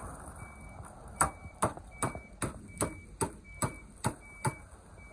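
Inside a car: a run of about nine sharp, evenly spaced clicks, some two and a half a second, starting about a second in, over a faint short beep that repeats about once a second.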